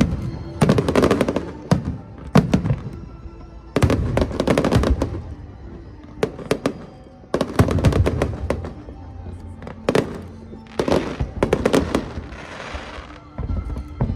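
Aerial fireworks bursting in clusters of loud bangs and crackles, with a hissing crackle near the end, over background music playing at the show.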